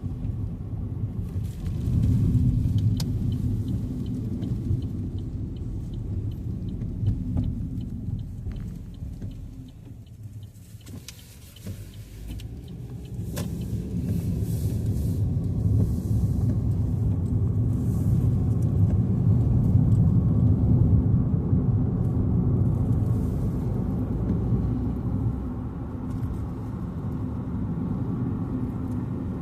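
Car driving on a highway, a steady low rumble of road and engine noise heard from inside the car, easing off briefly about ten seconds in before building again.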